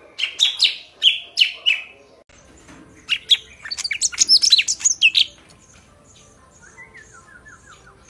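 Caged golden-fronted leafbird singing: a run of about six loud whistled notes, each falling in pitch, then, after a short break, a fast, varied burst of high warbling notes.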